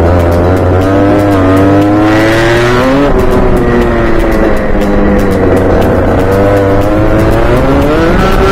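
Onboard sound of a Rotax Junior Max kart's 125 cc two-stroke engine at racing revs: the pitch climbs, drops sharply about three seconds in as the driver lifts, holds for a few seconds, then climbs again near the end.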